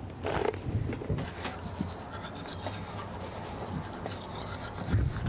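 Toothbrush bristles scrubbing against teeth: a quick, rasping rub, over a steady low hum. There is a short rustle about half a second in.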